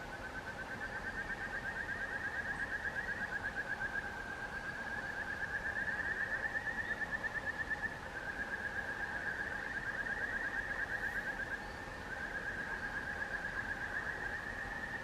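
A rapid pulsed trill from an animal, held in long phrases of about four seconds with short breaks between them, over a faint steady hiss.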